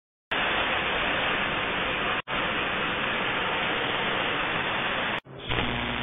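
Steady static-like hiss, part of an animated intro's sound design. It starts a moment in, drops out for an instant about two seconds in, and cuts off near five seconds, giving way to a low steady hum.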